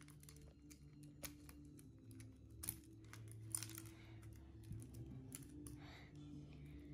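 Faint, scattered small clicks and ticks of wire leads and clips being pulled off a robot car's motor terminals and driver board, over a low steady hum.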